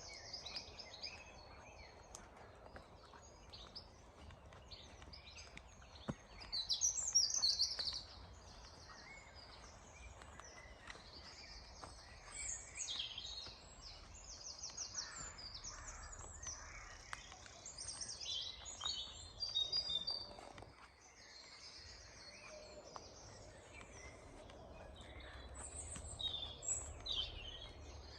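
Woodland birdsong: several small songbirds singing and calling at once, with quick chirps and trills over a low background hiss. The loudest burst of song comes about seven seconds in.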